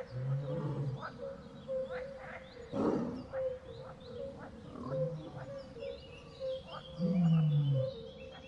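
A big cat growling low in three short rumbles, near the start, about five seconds in and near the end, with a rougher noisy burst about three seconds in. Behind it runs a steady chorus of short repeated chirping calls.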